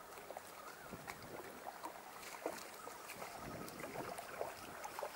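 Faint, irregular splashing of water with scattered small clicks and ticks, as a hooked bullhead catfish is reeled in toward the bank.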